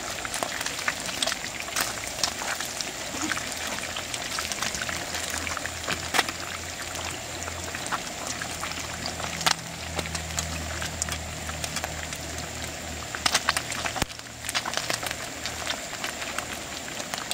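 Small river fish deep-frying in hot oil: a steady sizzle scattered with many small pops and crackles as the fish crisp up.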